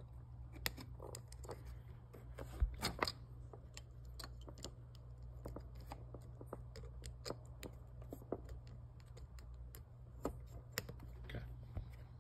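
Scattered small clicks and scratches of wires and a plastic connector being handled as a CAN bus lead is pushed onto a Focer 3.1 motor controller board, with a louder cluster of clicks about three seconds in, over a steady low hum.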